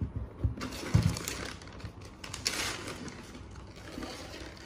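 A suede chukka boot with a crepe sole set down on a table with a few soft thumps in the first second, then rustling and handling noise as the second boot is taken out of its shoe box.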